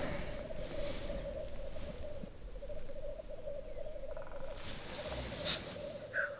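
Black grouse lek: the continuous bubbling, dove-like rookooing of displaying black grouse males, with a short sharp sound about five and a half seconds in and a brief call near the end.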